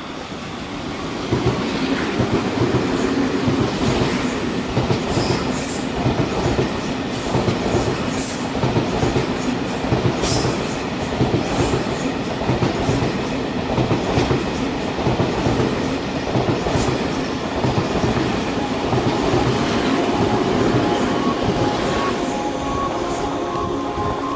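Train passing under the bridge: a steady rumble with fast wheel clatter over the rail joints, building about a second in and running on for some twenty seconds.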